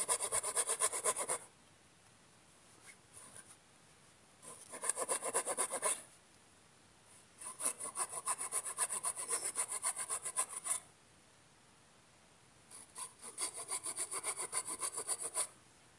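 Small hand saw cutting through the top of a wooden post in four bursts of quick back-and-forth strokes, with short pauses between them. The post end is being sawn off flush.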